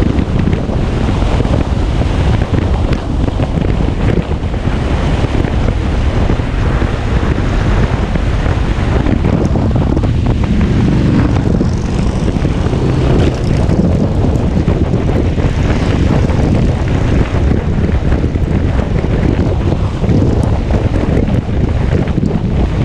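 Steady heavy wind noise on the microphone of a camera mounted on a moving motorcycle, a constant rushing with most of its weight low down.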